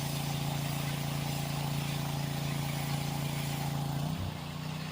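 Small engine running steadily at a constant speed, its note dropping and the level falling about four seconds in.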